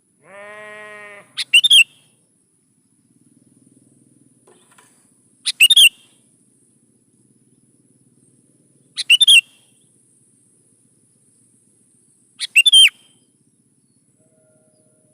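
Sooty-headed bulbul (kutilang) giving four short, sharp calls, spaced about three and a half seconds apart. A brief low bleat-like sound comes just before the first call.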